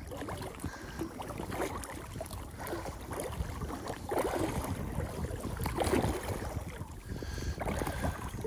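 Water lapping and splashing against a float tube (belly boat), in many small irregular splashes over a low rumble.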